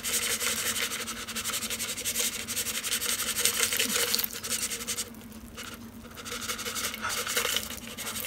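Crispy fried onion strings being tipped out of a bowl and scattered onto a green bean casserole, a dense dry rustling crackle. It drops off about five seconds in and comes back briefly near the end.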